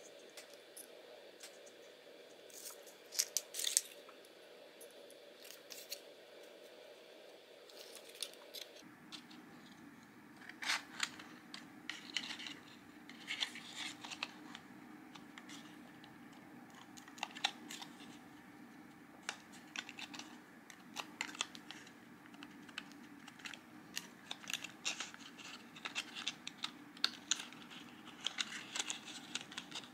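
Paper card being handled, folded and pressed together by hand: scattered light taps, rustles and scrapes of card against card and the cutting mat.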